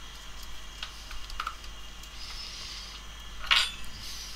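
Light clicks and rattles of a clear plastic compartment box of small spare phone screws and parts being handled and opened, with one louder plastic clatter about three and a half seconds in.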